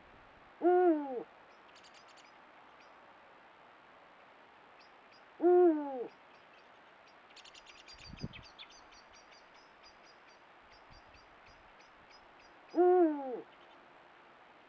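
Eurasian eagle owl hooting three times, each a deep hoot of about half a second that drops in pitch at the end, several seconds apart.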